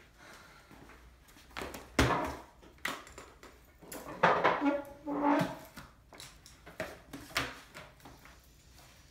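Books and a laptop being set down and handled on a stone kitchen countertop: a series of knocks and thumps, with a longer stretch of scraping and knocking about four to five and a half seconds in.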